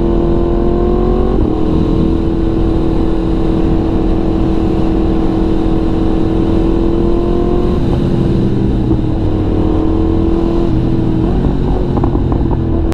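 Yamaha MT-series motorcycle engine running at a steady cruise under road noise, its note holding an even pitch with small shifts a few times.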